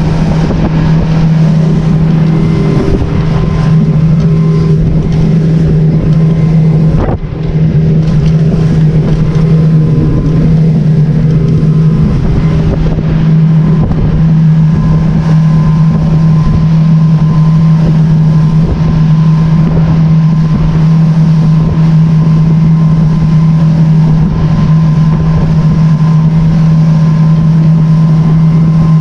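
Boat's outboard motor running steadily, a constant low hum.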